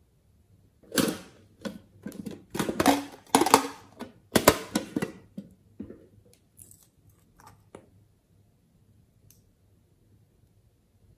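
Small bottle and applicator being handled: a quick run of sharp clicks and scrapes, then a few faint ticks.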